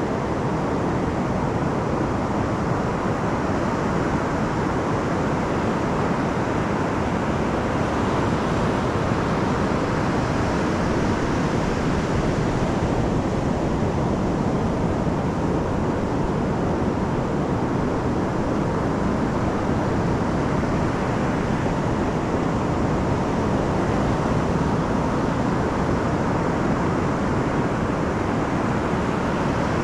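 Pacific surf breaking and washing up a flat sand beach: a steady, unbroken rush of waves.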